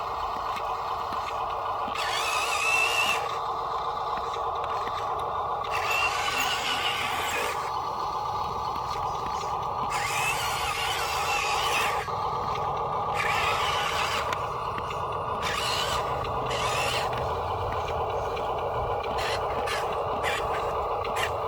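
Electric motors and gearboxes of radio-controlled construction models whining steadily, with repeated bursts of high-pitched squealing and scraping every few seconds.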